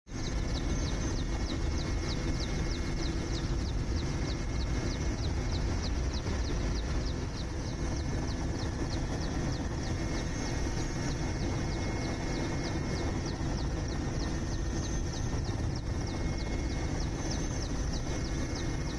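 Helicopter engine and rotor noise: a steady, loud rumble with a fast, even pulsing from the rotor blades.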